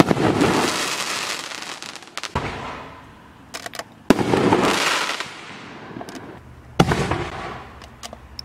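Consumer canister firework shells (Pyro Alienware 24-shell kit) breaking in the air: three sharp bangs a few seconds apart, each followed by a dense crackling tail that fades over a second or two, with a lighter thump and a few small pops between them.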